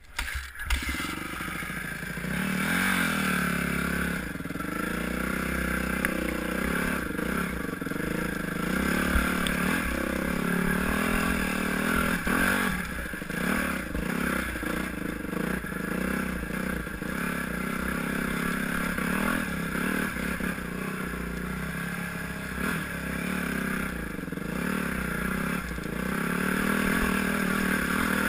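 Yamaha YZ250F four-stroke dirt bike engine starting up about half a second in, then revving up and down as the bike climbs a rough trail, with scattered knocks and clatter over the rocks.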